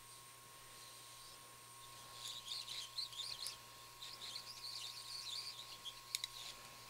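Faint irregular high-pitched crackling and squeaking from about two seconds in, as a hot air rework station heats the solder under the metal shield of an iPhone 5S logic board, with two sharp clicks near the end.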